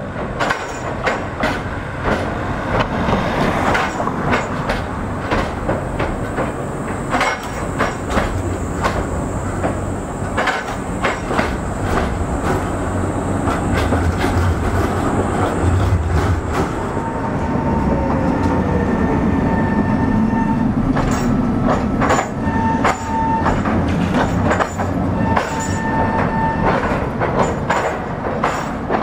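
Trams rolling slowly over a temporary 'California' surface crossover laid on top of the street: first a Škoda 15T low-floor tram, then a Tatra T3. Their wheels clack again and again over the laid-on rails and joints. A thin high whine runs through the first half, and short squeals sound in the second half.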